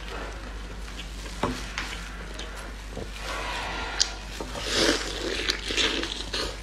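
Close-miked eating: biting into and chewing a large piece of cooked meat on the bone, wet smacking and tearing sounds, with sharp clicks about one and a half and four seconds in.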